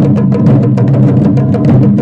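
Japanese taiko drums beaten in a fast, steady rhythm of about six or seven strokes a second, the drum heads ringing low beneath the strikes.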